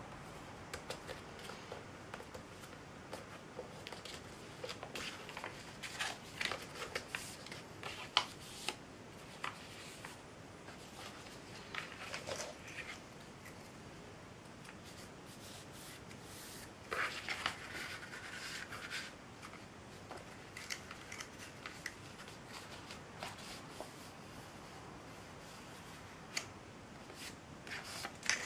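A sheet of printer paper being folded and creased by hand: irregular, faint rustling and crinkling with short sharp crease clicks, and a longer crinkle a little past halfway.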